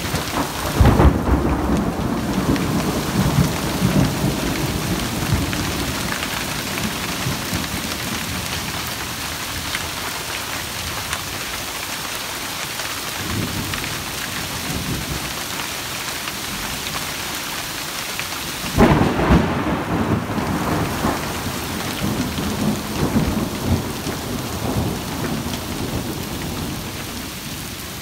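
Thunderstorm with hail and heavy rain pattering steadily on leaves and the forest floor. Two loud thunderclaps crack about a second in and again about 19 seconds in, each rolling on into low rumbling.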